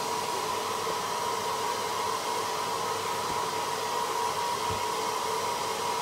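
Hair dryer running steadily on a constant setting: an even rush of blown air with a steady hum in it.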